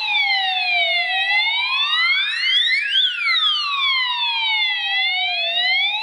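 Addressable fire alarm sounders sounding a siren tone in slow sweeps up and down, two sweeps overlapping out of step: the system is in fire alarm from the heat detector under test.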